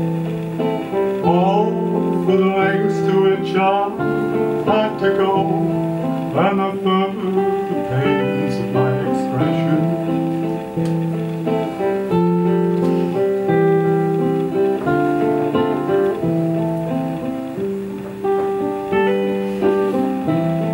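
Live music: a repeating pattern of guitar notes in layers, with a voice singing over it in places.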